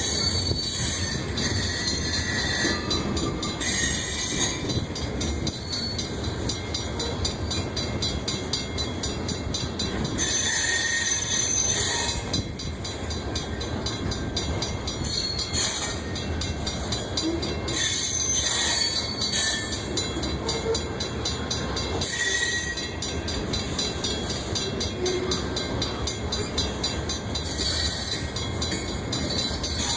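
Cars of a loaded grain train rolling past with a steady rumble of wheels on rail. Brief high-pitched wheel squeals break in every few seconds.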